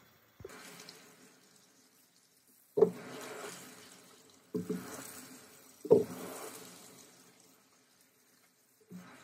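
Kitchen tap running into a sink while hands, and then a leafy green head, are rinsed under the stream. There are four sudden louder splashes, each fading over about a second, and the second and fourth are the loudest.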